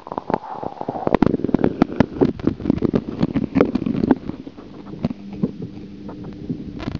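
Bathwater sloshing and splashing around a camera held at and just under the surface, with dense, irregular muffled knocks and gurgles as muscovy ducklings paddle around it, busiest in the first four seconds and thinning out after that.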